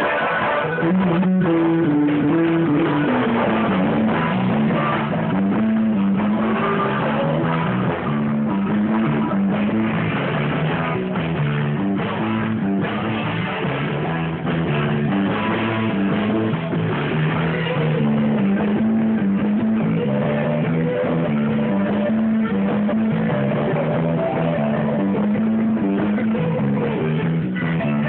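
A live rock band playing: electric guitar, bass guitar and drum kit, with a prominent moving bass line.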